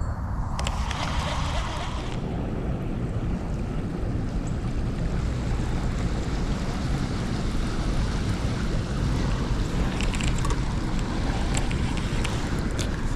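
Flowing creek water rushing steadily, with a few faint clicks near the end.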